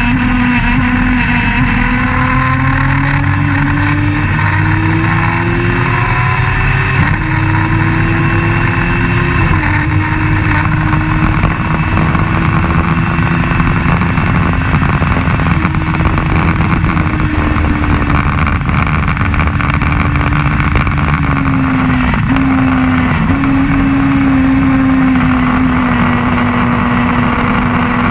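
Open-wheel race car's engine at racing speed, heard from the car's own onboard camera. The engine note climbs for several seconds, drops sharply at an upshift about seven seconds in, then holds high revs with a brief dip about two-thirds of the way through, and falls near the end.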